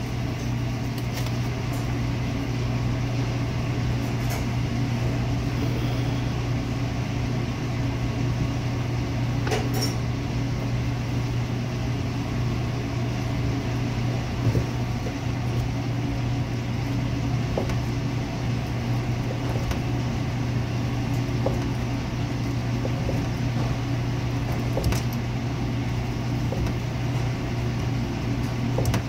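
Steady low mechanical hum of running kitchen machinery, with a few scattered light clicks and knocks.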